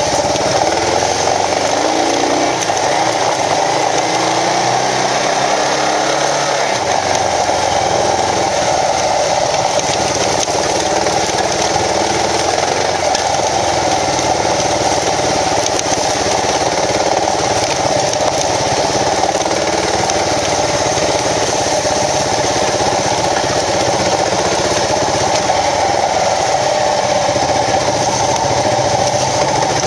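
Kawasaki KLR650 single-cylinder dual-sport motorcycle engine running under way on a trail, the revs rising and falling over the first several seconds and then holding fairly steady. A constant rushing noise runs under it.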